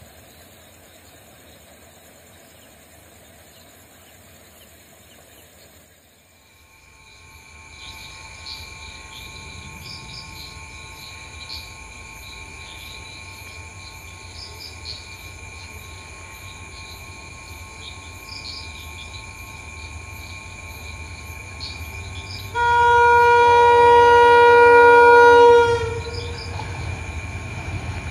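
Sri Lanka Railways Class M11 diesel-electric locomotive approaching, its sound growing steadily louder, then one loud horn blast about three seconds long near the end.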